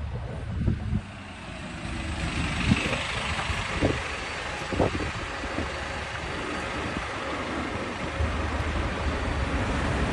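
Jet engines of a Boeing 747 landing, a steady rushing noise that swells about two seconds in, with wind buffeting the microphone in a low rumble and several short thumps.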